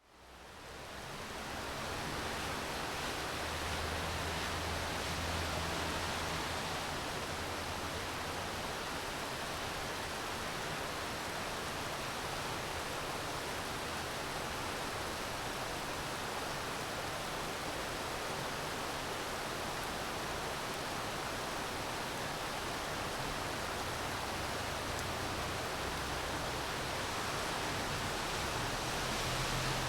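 Steady rainfall, an even hiss with no distinct drops standing out, fading in over the first second or two.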